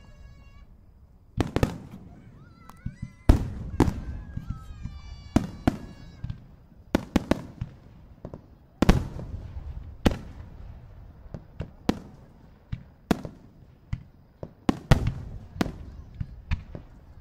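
Fireworks display: aerial shells bursting in an irregular string of sharp bangs, about one or two a second.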